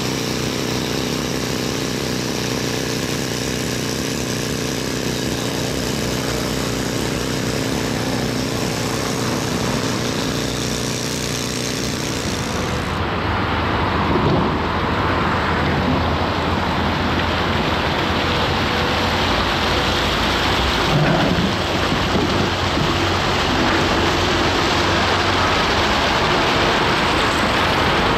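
Volvo EC290B LC tracked excavator's diesel engine running steadily, with the rumble and hiss of the machine at work. About halfway through the sound turns rougher and noisier, with a couple of louder knocks as it works.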